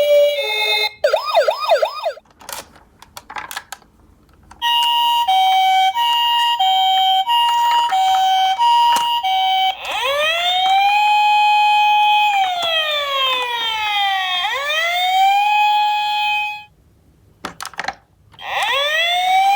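Electronic ambulance siren sounds: a brief fast warble, then the two-tone hi-lo "pee-po" siren alternating about every half second for several seconds, then a wail that rises and falls in pitch. The wail cuts off, a few clicks follow, and it starts again near the end.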